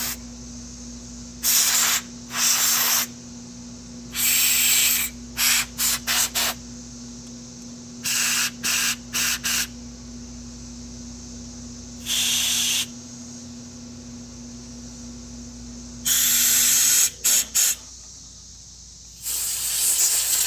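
Compressed air from a blow gun fired in short blasts into the jets and passages of a Honda GCV160 carburetor to clear them of clogs. A dozen or so blasts, from quick spurts to about a second long, some in quick runs.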